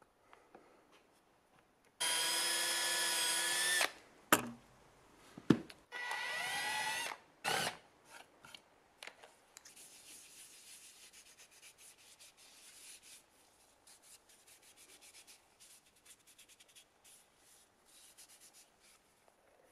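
A power drill runs in two bursts, about two seconds and then about one second long, with a couple of sharp knocks between them. Then, from about ten seconds in, a stiff brush is scrubbed quickly back and forth over wood, much quieter than the drill.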